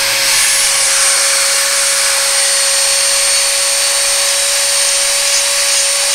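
Dremel rotary tool running at a steady high speed with a constant whine, smoothing and rounding off the tip of an African grey parrot's beak.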